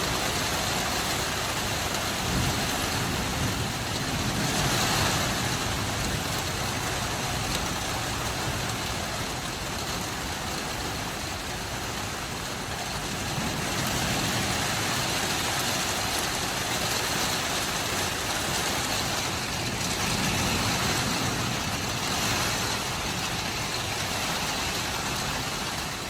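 Heavy storm rain and wind making a steady rushing noise that swells and eases slowly, like a river running.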